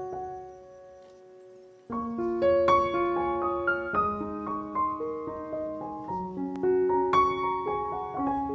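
Solo piano background music: a held chord dies away, then about two seconds in a new melody begins, single notes stepping along.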